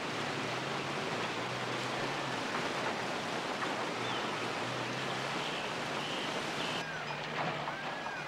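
Rushing river water: a steady, even rush, with a few faint chirps near the end.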